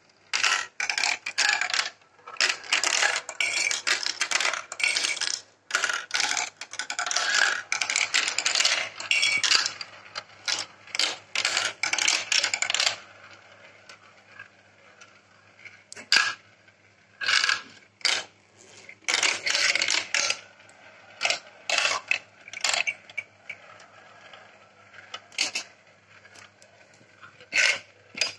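Glass marbles rolling and clattering through a plastic marble run: spinning around funnels, dropping through tubes and clicking against the plastic track pieces. For the first half the rattling is dense and continuous. After about 13 seconds it thins to separate clicks and short rattles.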